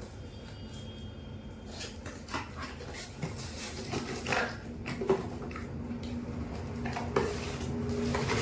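Scattered light clicks and knocks of a small plastic toy and its packaging being handled, with a steady low hum coming in about halfway through.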